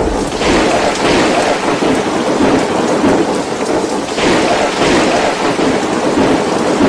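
Storm wind and heavy rain, loud and steady, with gusts swelling about half a second in and again about four seconds in.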